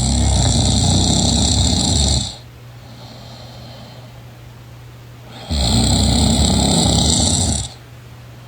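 A sleeping person snoring loudly and rhythmically. There are two long snores of about two seconds each, roughly three seconds apart.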